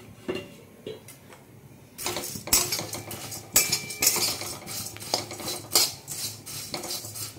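A spatula scraping and clinking against a kadai as it stirs and turns flattened rice (chira) being roasted until reddish and crisp. A couple of light knocks, then from about two seconds in a quick, busy run of scrapes and clinks.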